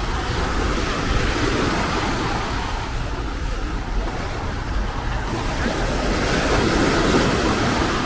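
Small sea waves washing and breaking on a sandy beach at the water's edge, swelling a little louder near the end, with wind buffeting the microphone.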